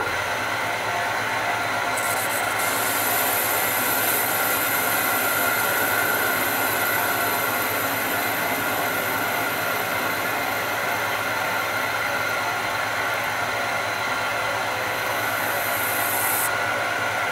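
Metal lathe running steadily while a carbide parting-off insert cuts across the end face of the spinning bar, a test cut to check that the insert sits at centre height. A high, even cutting hiss sits over the steady motor and gear hum from about two seconds in until near the end.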